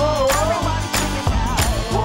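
Hip-hop music with a heavy bass beat, about three drum hits a second, under a melody line that glides up and down.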